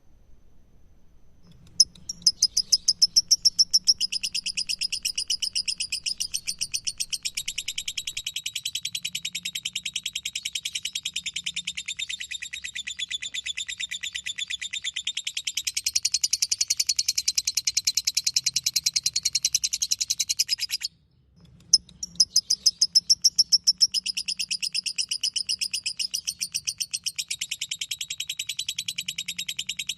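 Lovebird singing 'ngekek': a long, rapid, unbroken chattering trill of high, shrill notes. It starts about two seconds in, breaks off for a moment a little past two-thirds of the way through, then picks up again.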